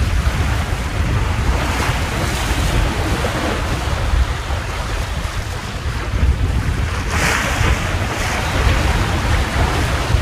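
Wind buffeting the microphone over the rush of water past a small sailboat's hull as it surfs down waves in strong wind, with a louder surge of spray about seven seconds in.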